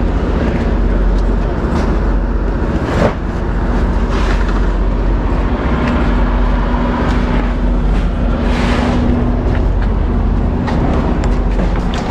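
A vehicle engine running steadily, a low rumble with a faint hum, and one sharp knock about three seconds in.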